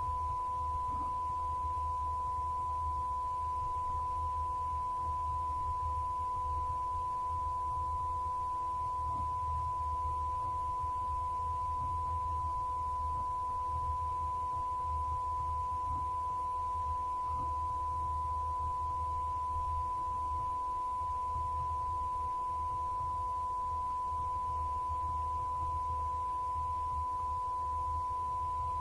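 A single steady, unbroken high electronic tone, like a test tone, with a fainter lower tone and a low hum underneath.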